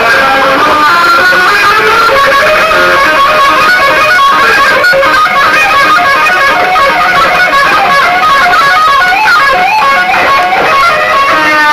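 Loud music with a fast-moving melody of quick, changing notes.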